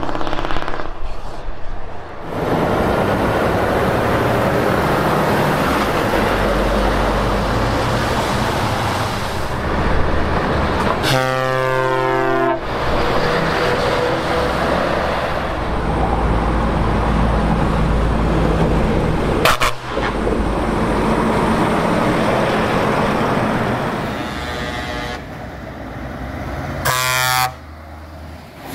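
Heavy trucks driving past with their diesel engines running, and air horns sounding over them. There is one long multi-tone blast about eleven seconds in, a brief toot near twenty seconds, and another short blast near the end.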